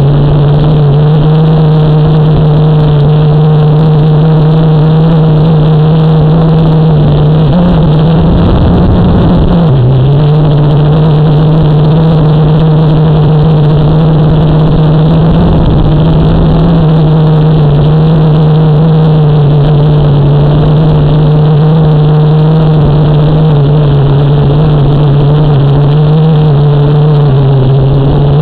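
Small drone's electric motors and propellers running at a hover, a loud steady buzzing hum as heard from the camera on board. The pitch sags briefly about eight to ten seconds in, with a low rumble of wind then and again around fifteen seconds in.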